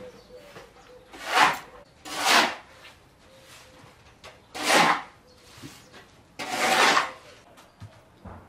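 Table being set: plates, bowls and paper napkins slid across a plastic-coated tablecloth, making four short swishes.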